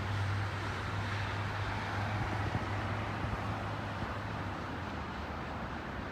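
Steady wash of road traffic mixed with the fading rumble of a loaded freight train's open-top hoppers rolling away. A low hum drops out about four and a half seconds in.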